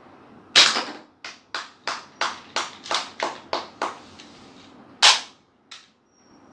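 Toy pistol firing: a loud crack, then a quick even string of about nine sharp shots, about three a second, and another loud crack about a second after the string ends.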